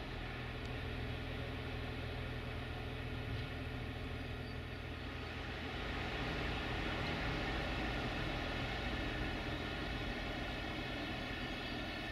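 Diesel train engine idling steadily.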